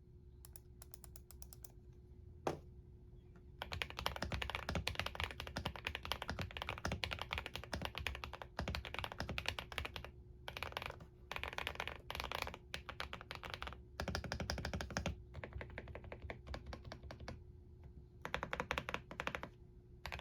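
Typing sound test on a modded CIY Tester 68 mechanical keyboard with KTT Coconut Latte linear switches, Higanbana clone keycaps, polyfill, tape and PE foam mods and lubed stabilizers. A few light keystrokes and a single sharp click give way to fast continuous typing about four seconds in, which breaks into short bursts with pauses in the second half. A faint steady hum runs underneath.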